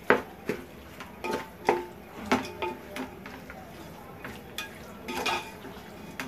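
Wooden spoon stirring raw red meat pieces with turmeric and ginger-garlic paste in a large metal pot, knocking and scraping against the pot at irregular intervals, the metal ringing briefly after some knocks.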